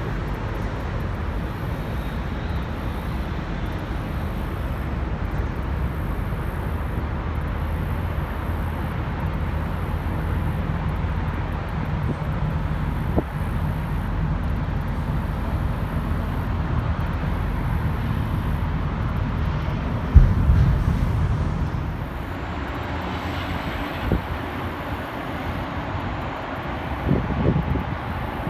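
A steady low engine rumble, with a sharp bump about twenty seconds in and a few light knocks near the end.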